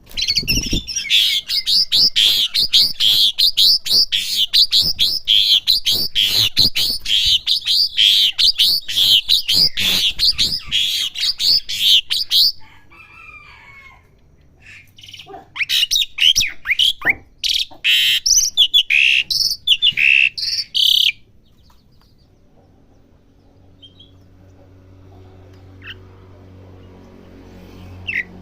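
Javan pied starling practising its song in fast runs of high chattering, whistled notes: one long run of about twelve seconds, then after a short pause a second run of about six seconds, followed by only a few faint chirps.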